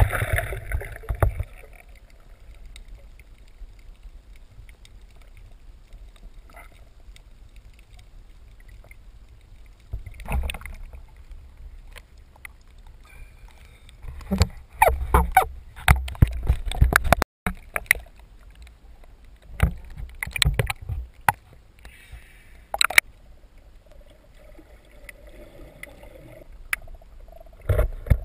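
Water noise around an underwater camera: a quiet, muffled low hush broken by bursts of splashing and handling knocks, busiest in the middle when the camera comes up at the surface.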